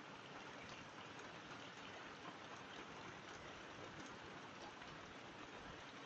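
Rain falling steadily: a soft, even hiss with scattered drops tapping.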